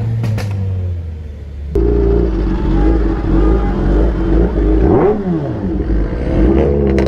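An engine drone inside a moving car, then, after a cut about two seconds in, the louder low rumble of an idling engine, revved up and back down briefly about five seconds in, with a few sharp pops near the end.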